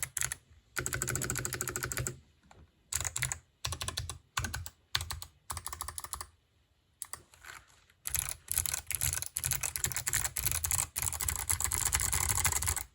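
Typing on an NK65 65% mechanical keyboard with clicky switches: quick runs of sharp key clicks broken by short pauses, then a long stretch of fast continuous typing that stops suddenly at the end.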